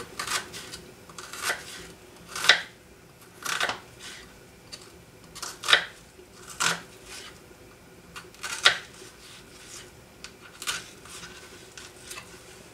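Kitchen knife slicing an onion into thin slices on a cutting board: irregular sharp taps of the blade striking the board, roughly one a second, the loudest about two and a half seconds in.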